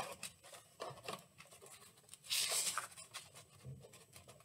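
Paper and cardboard rustling and scraping as hands handle a tissue box and its cardboard flap while tying a string through it, with small scattered clicks and one louder rustle a little past the middle.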